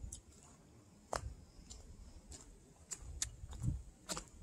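A walker's footsteps on a gravel and dirt trail: faint, irregular ticks and soft low thuds.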